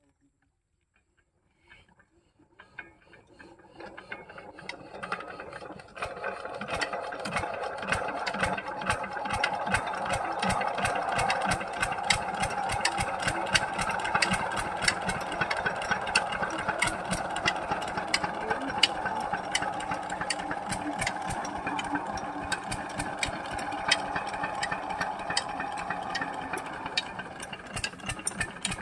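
Single-cylinder diesel pumpset engine starting up: it catches about two seconds in, builds up over the next few seconds, then runs steadily with a fast, even knock while it drives a belt-driven water pump.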